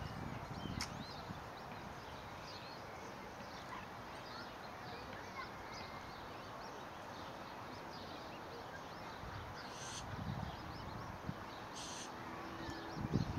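Newly hatched swan cygnets peeping, many short high rising peeps repeating throughout, over a steady outdoor hiss, with a few low thumps near the start and the end.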